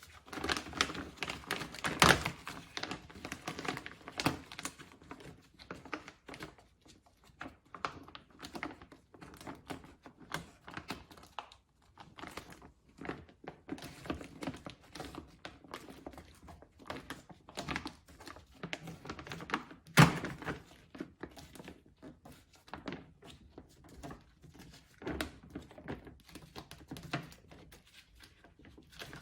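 Hands pressing a plastic door vapor barrier back onto its adhesive against the door: irregular crinkling, rubbing and light taps, with a louder thunk about two seconds in and another about twenty seconds in.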